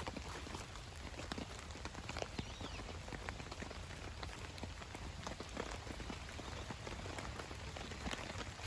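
Rain falling on a nylon tarp: many irregular drop taps over a steady hiss.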